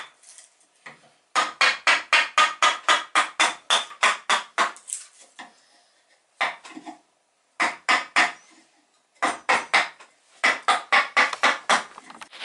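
Wooden mallet striking a wide, shallow carving gouge: runs of quick knocks, about four a second, broken by short pauses, as the gouge cuts into a pine board to smooth the hollowed bottom.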